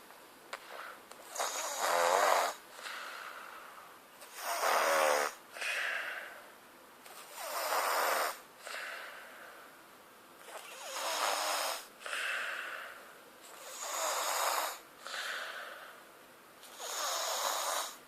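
Snoring in a steady rhythm: six loud, rasping snores about three seconds apart, each followed by a softer breath.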